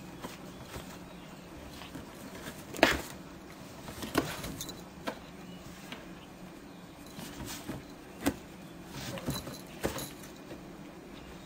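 Cardboard rustling and knocking as a cat pushes its head and body between box flaps, with scattered sharp knocks, the loudest about three seconds in and another near eight seconds.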